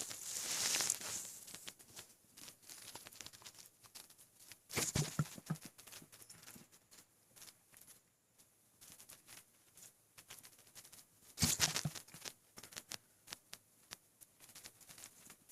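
Two hiccups, one about five seconds in and one about eleven and a half seconds in, from a man whose stomach is overfull with water and food. Between them come faint small crackles and rustles, with a breathy rustle at the start.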